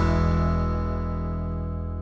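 Background music ending: a final held chord rings out and slowly fades away.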